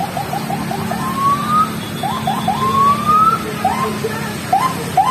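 Electronic vehicle siren chirping: a quick run of short chirps, about six a second, then two rising whoops about a second apart, then scattered chirps, over a steady low hum.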